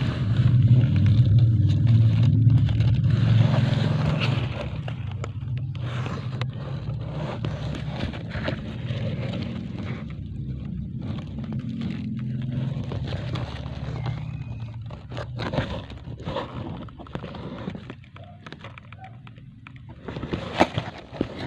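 A low motor rumble, loud at first and fading away over about a dozen seconds, with scratchy rustling throughout and a sharp click near the end.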